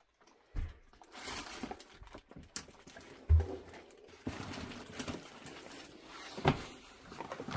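Footsteps and rustling as someone picks their way over a floor strewn with papers and debris, with three heavy thuds, the loudest about a third of the way in.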